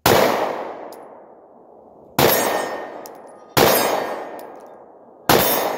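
Four single shots from a Glock 43 9mm subcompact pistol, fired one-handed, about one and a half to two seconds apart. Each sharp crack is followed by an echo that dies away over a second or two.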